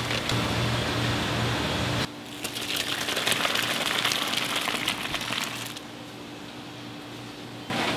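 Spicy tteokbokki sauce bubbling and simmering in a pan, with crackling pops over a low steady hum. The sound changes abruptly about two seconds in to a thinner hiss, drops quieter about six seconds in, and jumps back near the end.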